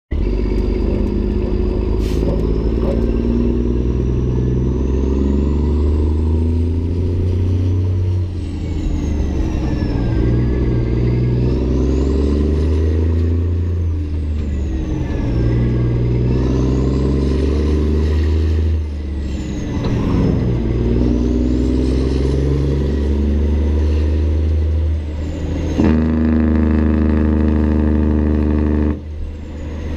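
Caterpillar 3406E inline-six diesel in a Peterbilt 379 semi, tuned to about 1000 hp, pulling hard up through the gears. Each time the engine note climbs within a gear, a high turbo whistle rises with it. Both drop back at each upshift, several times over.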